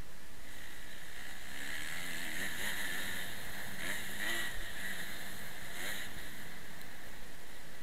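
Motocross bike engine running under riding load on a dirt track, rising and falling in pitch with the throttle from about two to six seconds in. Heard from a helmet-mounted camera, with a steady rush of wind noise over it.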